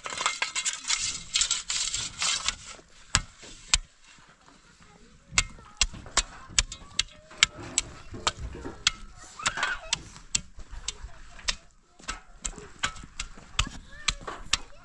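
Metal shovel blade scraping and chopping into stony soil: a rough scraping stretch for the first couple of seconds, then a string of sharp, irregular clinks and knocks as the blade strikes stones.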